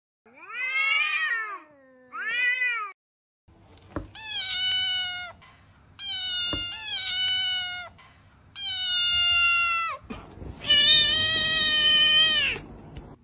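Kittens meowing: a string of about seven separate meows with short pauses between them, the first two lower-pitched than the rest.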